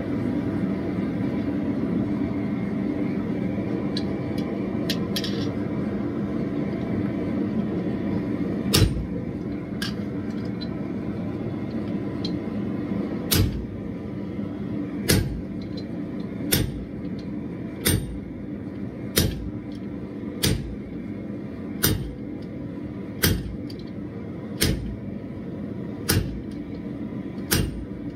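Steel hammer striking the top die of a guillotine fuller to fuller a red-hot bar: a couple of single blows, then from about halfway through a steady run of blows about one and a half seconds apart. Under it the gas forge's burner runs steadily.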